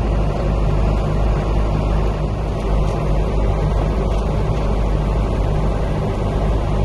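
Diesel engine of heavy farm harvest machinery running steadily: an even low hum with a broad rushing noise over it.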